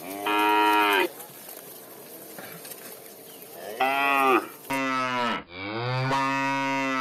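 Cattle mooing: four moos. Two short ones come first, one right at the start and one about four seconds in, then two longer ones back to back in the second half.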